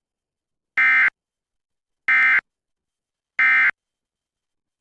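Emergency Alert System end-of-message signal: three short bursts of screeching SAME digital data tones, about a second and a quarter apart, marking the end of the alert message.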